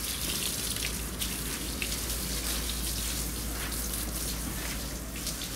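Water from a garden hose spraying onto a dog's wet coat and splashing on a tiled floor, a steady hiss with small spatters.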